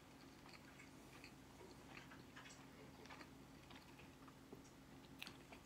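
Faint chewing of a Filet-O-Fish sandwich: soft, irregularly spaced mouth clicks over a low steady hum.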